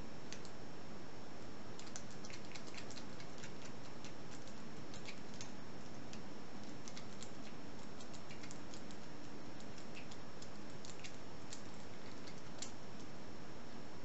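Faint, irregular metallic clicks and ticks of the back of a lock pick being rocked back and forth against the mushroom pin tumblers in an Am-Tech 40 mm padlock held under tension, over a steady background hiss.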